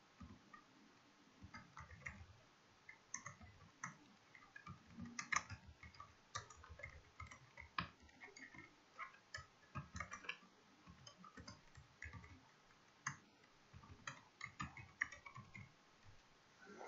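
Computer keyboard keys clicking faintly in irregular runs of keystrokes as code is typed.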